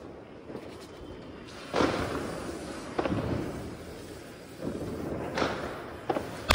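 Diwali fireworks: a ground fountain (anar) hissing and crackling as it sprays sparks, with several sharp firecracker bangs going off at irregular intervals, the loudest about two seconds in.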